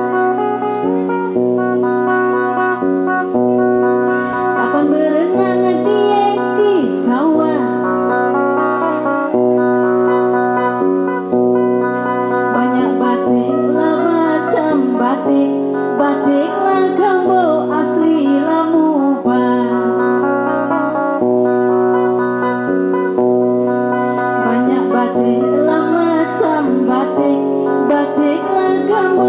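Woman singing a Batanghari Sembilan tembang, a traditional South Sumatran song, in a wavering, ornamented line that bends up and down in pitch. A guitar accompanies her with held low notes that step from pitch to pitch.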